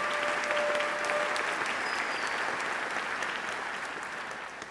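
Audience applause, steady at first and gradually dying away near the end.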